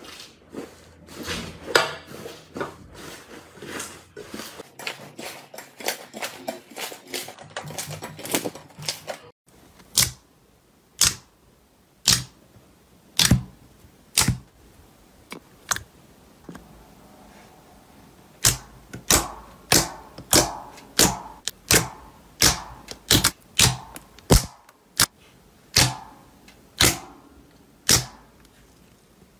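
Thick, crumbly 'tofu dreg' slime squeezed between two hands, giving dense crackling squishes with many small clicks. After a pause, clear slime is pressed by hand and trapped air pockets burst in sharp pops, first about one a second, then coming faster near the end.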